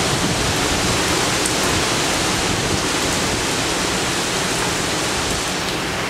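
Heavy rain in a windy storm pouring onto tiled paving: a steady, even rushing hiss.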